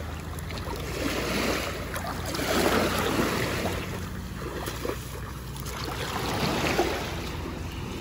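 Small sea waves washing in over the sandy shallows at the water's edge, the wash swelling and fading every couple of seconds.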